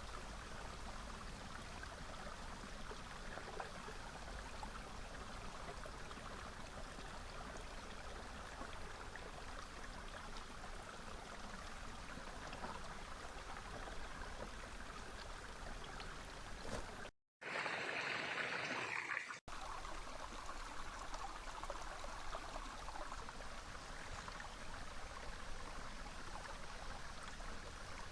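Small river flowing, a steady rushing of water. About two-thirds of the way through, the sound cuts out, comes back louder and hissier for about two seconds, then cuts out again briefly before the steady flow returns.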